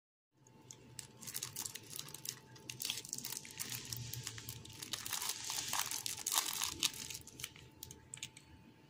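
A crunchy cinnamon crumb pastry in a paper cupcake liner being squeezed and torn in half by hand: crisp crackling of the crumbly top and crinkling of the paper liner. The crackling is busiest past the middle and thins out near the end.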